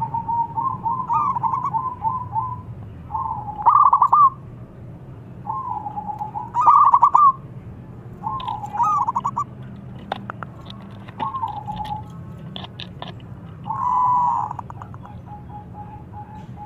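Zebra dove (perkutut) cooing: short phrases of quick stuttering, rolling notes, repeated about every two seconds, with a few faint clicks in the gaps.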